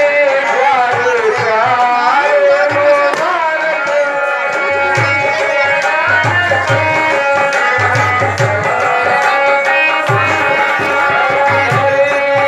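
Live stage accompaniment music: low hand-drum strokes in a loose rhythm under a continuous melodic line that slides and bends in pitch early on, then holds steadier notes.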